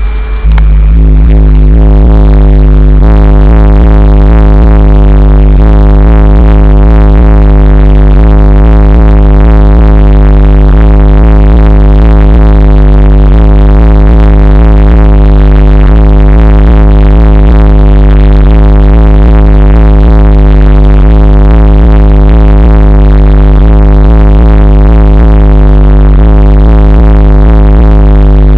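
Bass-heavy music played extremely loud through a car audio system's single B2 Audio HS15 Mk1 subwoofer on a Power Acoustik amplifier. The deep bass is steady and dominant, pushing the recording to full scale.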